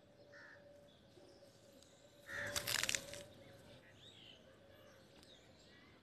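Alexandrine parakeet giving one short, harsh, rasping screech about two and a half seconds in, after a softer brief call near the start.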